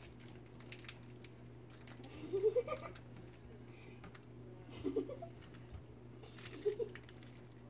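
Vizsla puppies' paws and claws clicking and scratching as they scramble about a wooden whelping box, with a few short whines, one rising in pitch a couple of seconds in.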